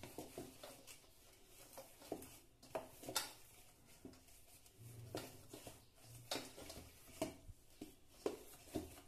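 Hands kneading a ball of wheat-flour dough in a stainless steel bowl: faint, irregular soft thumps and squishes as the dough is pressed and turned.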